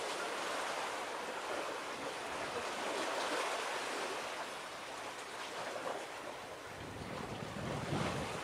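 Waves washing and wind blowing across the harbour water, swelling and easing every second or two. Low wind buffeting on the microphone comes in near the end.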